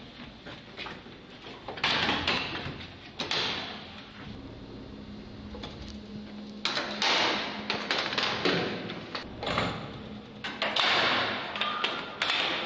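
The doors and mesh gates of a cage lift being worked open and shut: several rattling, clattering stretches with sharp knocks between them. A faint steady low hum sounds for a couple of seconds in the middle.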